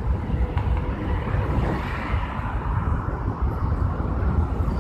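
Road traffic passing on a multi-lane road: a steady low rumble, with one vehicle's tyre noise swelling and fading about two seconds in.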